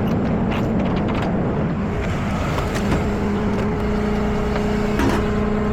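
Tow truck engine running steadily, its hum steadying and strengthening about three and a half seconds in, with a few scattered clicks and knocks.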